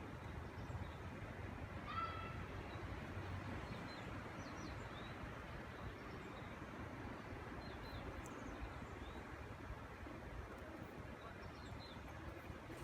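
Steady background noise with a few short bird calls: one clearer call about two seconds in, then faint high chirps scattered through.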